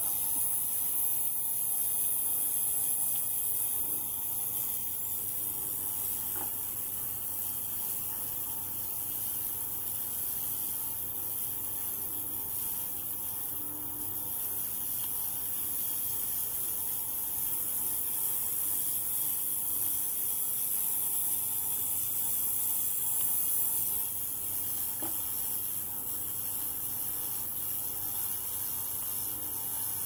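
Ultrasonic cleaning bath and small water-circulation pump running together: a steady high hiss with a low hum beneath it, the level easing slightly at about four seconds and again near twenty-four seconds.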